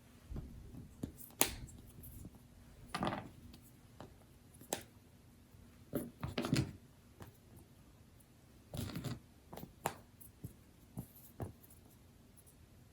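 Scattered soft rustles and taps of things being handled, about a dozen short sounds with small clusters near three, six and nine seconds in.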